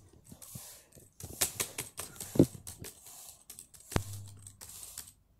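Keys on a Samsung laptop keyboard being pressed in scattered clicks, with a louder knock about two and a half seconds in.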